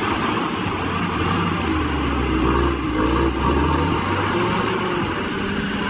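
A heavy machine's engine running, its pitch rising and falling slightly as the load or revs change.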